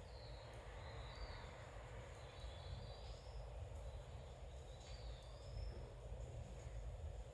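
Bird chirping in three short high phrases over faint steady rain heard through an open window, with a few faint ticks.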